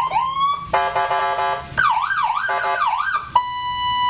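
Electronic police-escort siren with a 15-watt speaker, freshly installed and being tested as it cycles through several of its tones: quick rising whoops, a choppy pulsing warble, a fast up-and-down yelp, then a steady high beep near the end.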